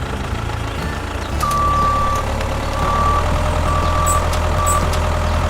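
A reversing-style electronic beeper on a model construction vehicle sounds four beeps of one pitch, the first long and the others shorter and unevenly spaced. Under the beeps a small motor hums, getting louder as the beeping begins.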